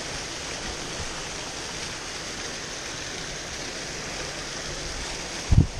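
Rocky mountain stream rushing steadily over stones, with a short low thump near the end.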